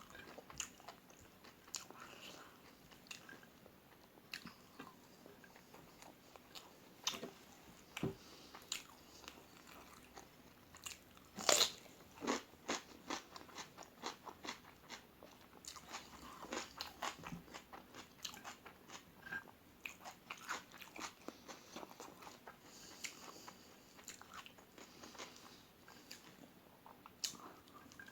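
A person biting and chewing crispy food close to the microphone: irregular crunches and mouth clicks, with one loud crunch about eleven seconds in.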